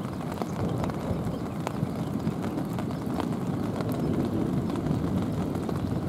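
Thunder rumbling low and continuous, building over the last couple of seconds, with scattered sharp taps of raindrops over it.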